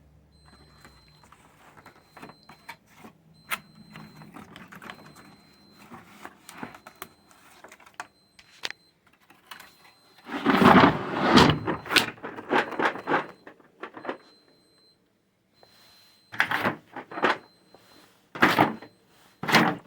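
Handling noise from a boxed socket set case: scattered light clicks and knocks, then a louder stretch of scraping and rattling about ten seconds in, with two shorter bursts near the end.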